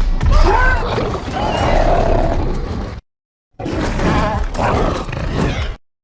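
Wartdog creature calls from the film's sound design: loud growling roars that rise and fall in pitch, in two stretches split by a sudden break of dead silence about three seconds in.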